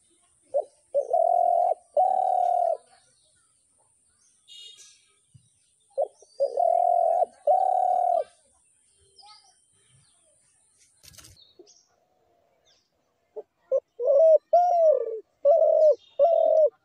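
A dove cooing in three phrases about five seconds apart. Each phrase is a short note followed by two or three longer, low coos, and the last phrase has falling coos. Faint chirps of small birds come between the phrases, and there is a sharp click about eleven seconds in.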